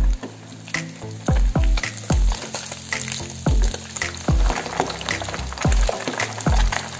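Background music with a steady beat and deep kick drum, over the sizzle of catfish deep-frying in hot oil.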